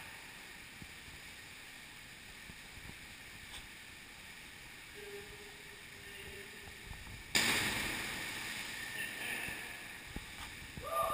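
A person drops into a pool of muddy floodwater with one sudden loud splash about seven seconds in. The water noise dies away over the next couple of seconds.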